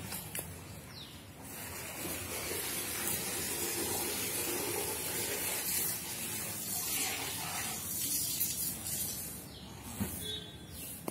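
Steady hissing background noise, with a brief click about ten seconds in.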